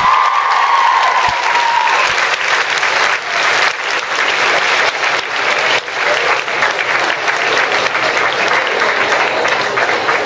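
Audience applauding loudly, dense and continuous clapping, as a short held tone fades out in the first couple of seconds.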